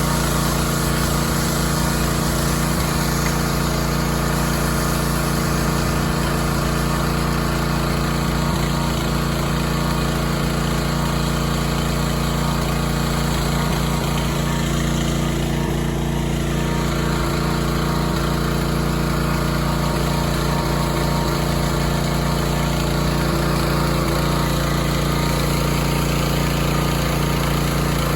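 Gas pressure washer running steadily: a small engine's even drone with a high hiss over it, the hiss shifting briefly about halfway through.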